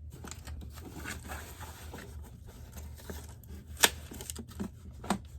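Cardboard box and packaging being handled and opened: faint rustling and scraping, with a sharp click a little before four seconds in and another about a second later.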